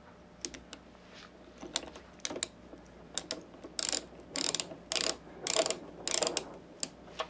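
A small screwdriver driving the security screw back into a first-generation PlayStation 3's top cover: scattered clicks, then about half a dozen short rasping turning strokes from about four seconds in.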